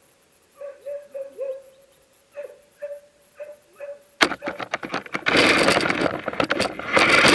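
Remote-controlled truck's electric motor whining in short, repeated throttle blips. About four seconds in, the truck drives off hard over dirt: a loud rush of motor and tyres with rapid rattling, surging twice.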